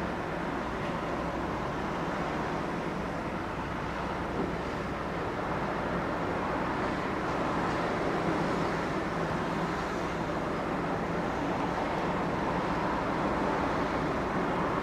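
Steady road traffic at an intersection: a continuous wash of passing cars and engine hum, growing a little louder from about halfway.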